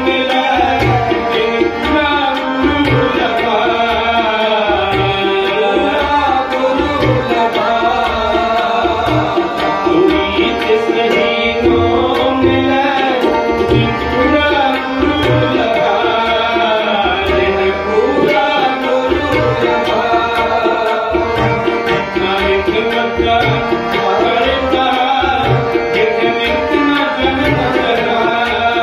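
Sikh kirtan: tabla and harmonium accompanying a sung shabad. The tabla's deep bass strokes recur every second or two under the steady harmonium drone and the singing.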